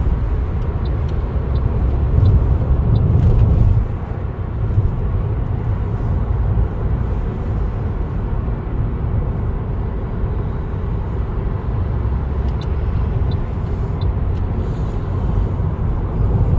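Steady low rumble of a car travelling at road speed, heard from inside the cabin: engine and tyre noise, a little louder for a couple of seconds near the start.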